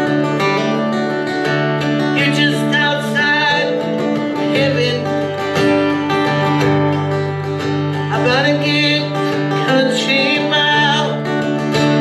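Solo acoustic guitar strumming sustained chords in a live country-folk song, with a higher melody line bending and wavering in pitch over it at several points.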